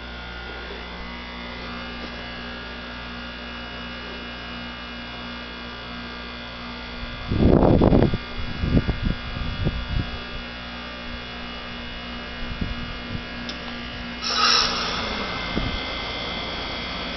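Heat pump outdoor unit at the end of a defrost cycle: the compressor hums steadily, then about seven seconds in a loud rush of refrigerant as the reversing valve shifts, followed by a few seconds of irregular knocks and gurgles. Near the end a hissing rush sets in and the hum dies away. The whole cycle is loud.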